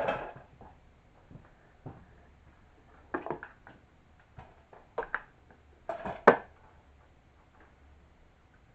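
Scattered knocks and clatters of objects being handled, a few short bursts with the sharpest one about six seconds in.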